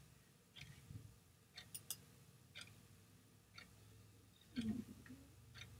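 Faint, sharp clicks about once a second in a quiet room, with a short low sound about four and a half seconds in.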